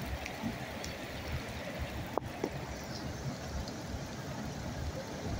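Steady low rumble of a car driving through floodwater, with water rushing and sloshing around it, heard from inside the cabin. A short click about two seconds in.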